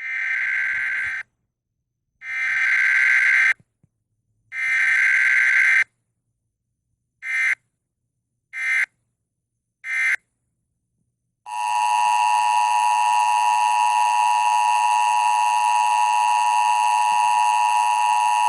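Emergency Alert System tones: three buzzy digital header bursts of about a second each, then three short bursts, then the steady two-tone EAS attention signal sounding continuously.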